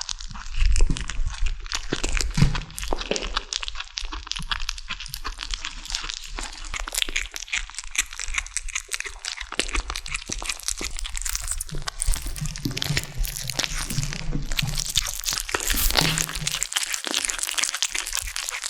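Kittens eating a large chicken drumstick: steady, dense crunching and wet chewing as they bite and tear at the meat.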